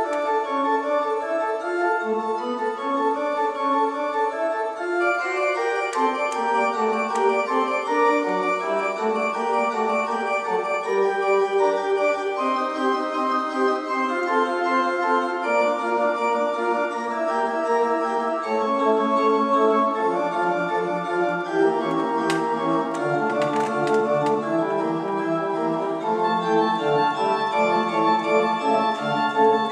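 Organ playing a slow piece in several parts, with steady held notes; lower bass notes join about two-thirds of the way through.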